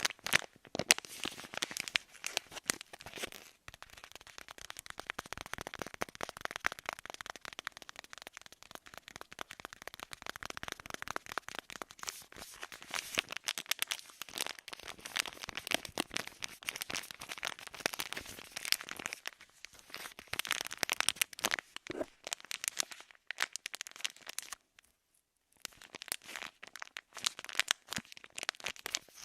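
Close-miked ASMR trigger sounds: a dense, irregular run of small crackling clicks, with a short pause about 25 seconds in.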